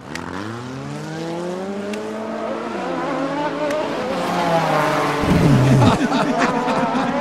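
Racing motorcycle engine accelerating: its pitch climbs over the first two seconds, holds, then drops about three seconds in, and a louder, lower engine note comes in about five seconds in.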